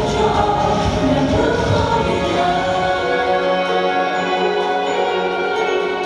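Choral music, voices holding long sustained notes.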